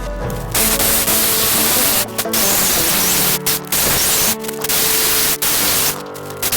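Power tool cutting, a loud hiss that runs in stretches of about one to one and a half seconds with short breaks between them, over background music.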